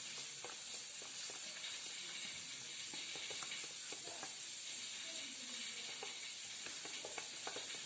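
A utensil stirring a batter of warm milk, yeast, sugar and flour in a bowl, giving scattered light clicks and taps against the bowl. A steady high hiss runs underneath.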